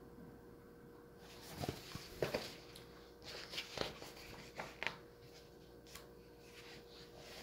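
Handling of a picture book's pages: a run of short papery rustles and taps from about a second in until about five seconds, over a faint steady hum.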